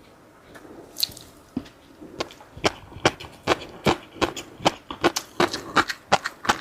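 Close-miked eating: a few sharp crunches, then steady rhythmic chewing and crunching at about three bites a second from a couple of seconds in.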